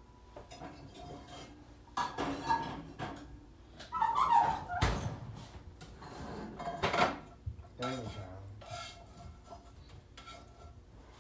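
Metal pots and pans clattering and clanking together as someone rummages through cookware for a bigger pan. There are several irregular bursts of clatter, with one sharp knock about five seconds in.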